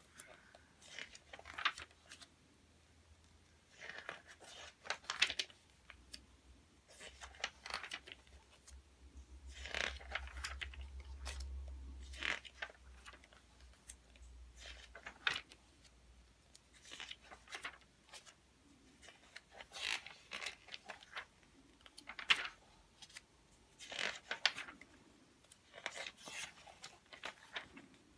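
Pages of a glossy magazine being turned one after another, each turn a short papery rustle and flap, coming roughly every two seconds.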